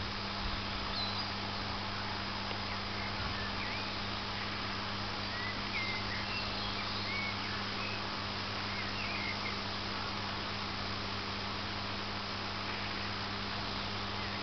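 Steady hiss of a long-throw irrigation sprinkler's water jet spraying over grass, with a low steady hum underneath. Birds chirp now and then.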